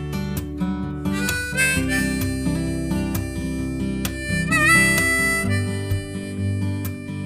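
Background blues music: harmonica over acoustic guitar, with a bent harmonica note about halfway through.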